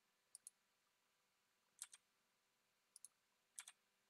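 Four faint clicks of a computer mouse button, each a quick double tick as the button is pressed and released, irregularly spaced.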